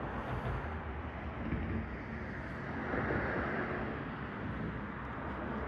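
Steady outdoor background noise with a low rumble, swelling briefly about three seconds in.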